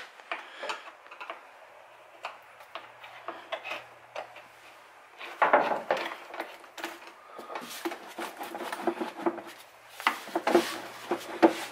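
Plastic air intake tube being worked loose from the throttle body by hand: scattered clicks, knocks and rubbing of plastic and rubber. The handling gets louder about five and a half seconds in and again near the end.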